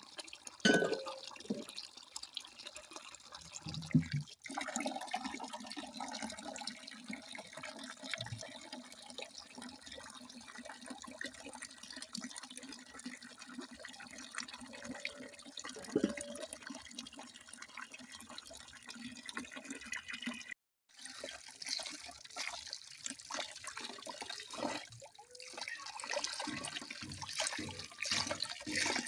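Running water splashing and trickling steadily, with a few louder splashes. About two-thirds of the way through it cuts out for a moment, then resumes with a brighter, more splashy sound.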